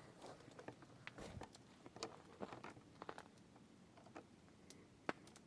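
Near silence broken by faint, scattered clicks and ticks.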